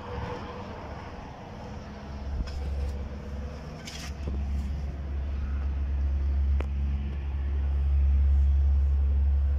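A steady low rumble that grows louder over the last few seconds, with a couple of light clicks partway through.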